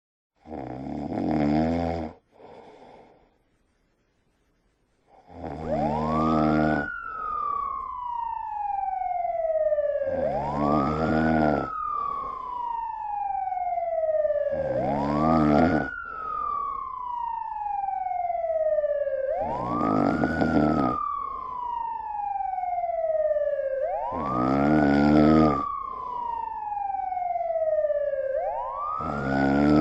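Loud snoring, one long rasping snore about every four and a half seconds, with a siren wailing in the same rhythm: each wail climbs quickly and falls slowly. A single snore and a few seconds' pause come before the siren joins about five seconds in.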